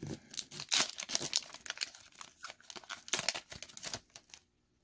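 Foil Pokémon booster pack wrapper being torn open and crinkled: a run of sharp crackles and rips that stops about four seconds in.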